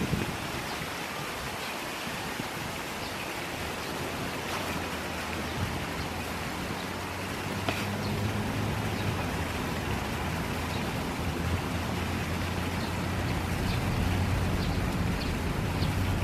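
Fountain water splashing in a steady, even hiss, with a low rumble that builds in the second half.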